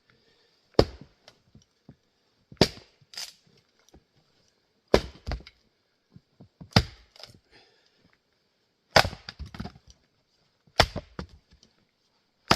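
Axe splitting grand fir firewood rounds: a sharp crack of the axe biting into the wood about every two seconds, several followed by smaller knocks.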